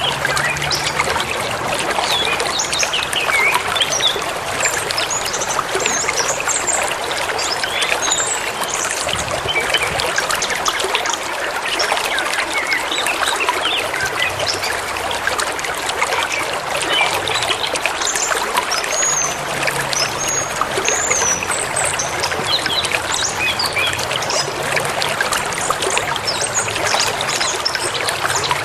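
River or forest stream flowing steadily, a continuous splashing trickle of water over stones. Small birds chirp briefly above it now and then, most of all about a third of the way in and again past the middle.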